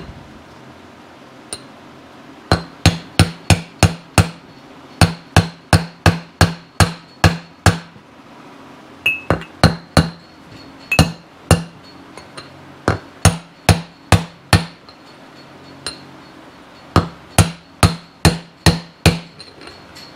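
Hammer tapping a wheel bearing into a motorcycle wheel hub: runs of sharp metallic taps, about three a second, broken by short pauses.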